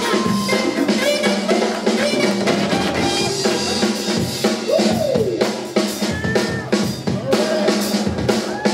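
Hip-hop break music with a steady drum-kit beat of regular kick and snare hits and a melody line gliding above it.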